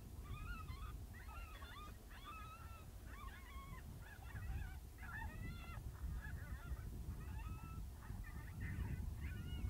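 Predator call playing a steady string of short, wavering, squalling calls, about three every two seconds, over a low rumble.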